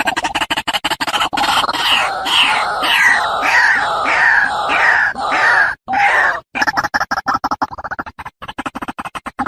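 White-breasted waterhen calling: a fast stutter of croaking pulses, then from about a second in a run of repeated falling notes, two or three a second, before the rapid stutter returns in the last few seconds.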